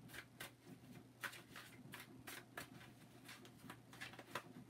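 A deck of tarot cards being shuffled by hand: faint, irregular soft clicks and slaps of the cards, several a second.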